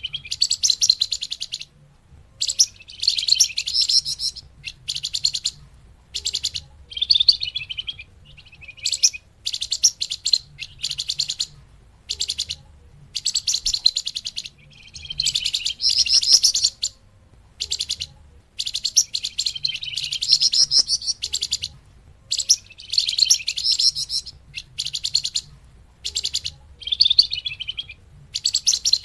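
Flamboyan songbird singing a looped series of high, rapid trilled phrases, each lasting about a second with short pauses between. It is a bird-trapping lure call (suara pikat).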